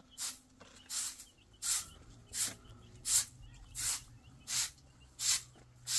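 Broom sweeping packed earth in short, even swishing strokes, about one every 0.7 seconds.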